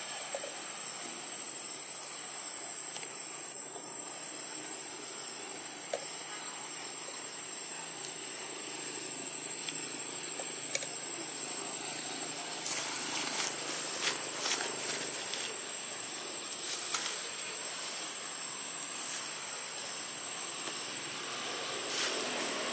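Steady high-pitched hiss of background ambience, with a few faint clicks between about twelve and seventeen seconds in and once near the end.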